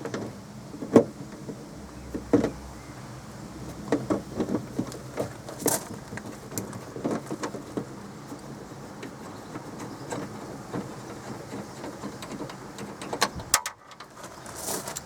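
Irregular clicks, knocks and light rattles of hands and tools working a plastic cover off the inside of a car door, with the sharpest knock about a second in.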